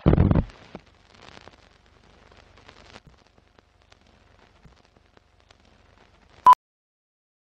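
Film countdown-leader sound effects: a loud thump at the start, faint crackling and scattered ticks, then one short beep about six and a half seconds in.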